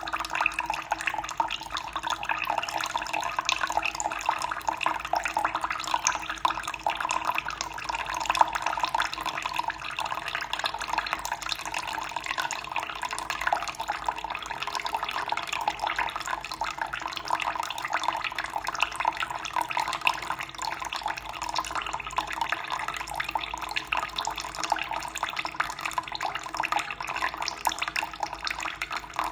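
Running water flowing steadily, a continuous rush with many small irregular splashes and trickles.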